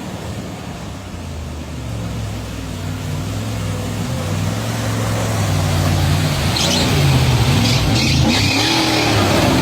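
Off-road 4x4 engine running under load, its pitch rising and falling as it revs and growing steadily louder, with short hissing bursts in the last few seconds.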